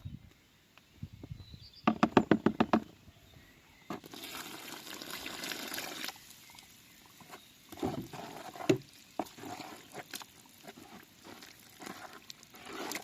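Plaster mix being prepared: a quick loud rattle of about eight beats, then water poured for about two seconds, then scattered knocks and scrapes of stirring gypsum plaster into a runny mix.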